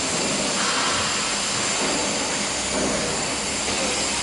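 Single-layer, five-rib roofing-sheet roll-forming machine running, steel sheet feeding through its forming rollers: a steady mechanical noise with a faint high whine.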